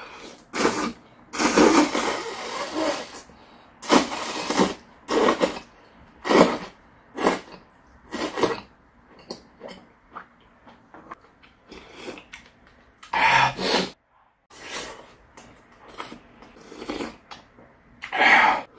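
Close-miked eating sounds: slurps of soup-soaked cooked greens sucked in off chopsticks, then wet chewing and smacking. These come in a string of short noisy bursts, the longest about a second and a half in.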